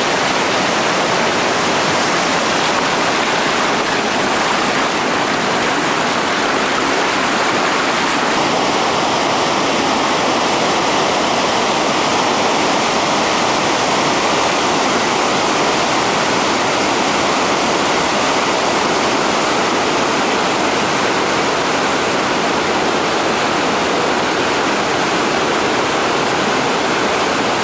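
Whitewater river rapids rushing: a steady, loud roar of churning water.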